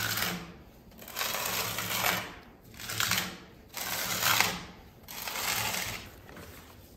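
A small steel plastering trowel scraping pigmented lime plaster across a wall in about five long spreading strokes, roughly one a second.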